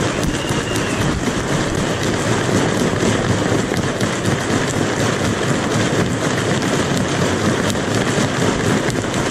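Large crowd of protesters cheering and clapping in a steady, dense din.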